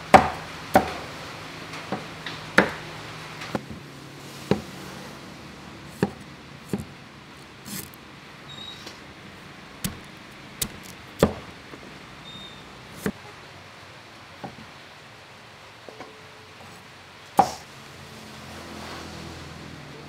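Heavy cleaver chopping a galangal root on a thick wooden chopping block: single sharp knocks at an uneven pace, roughly one a second, some much louder than others.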